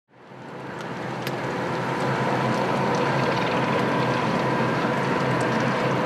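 Steady outdoor ambience: an even rushing noise with a faint hum, fading in over the first second or two.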